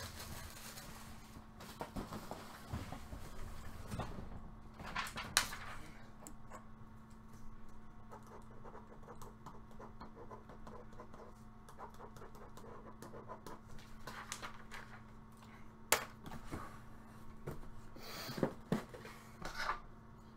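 Quiet handling sounds at a desk: paper rustling and a pen writing on a printed sheet, with scattered light clicks and taps and a sharper click about sixteen seconds in, over a steady low hum.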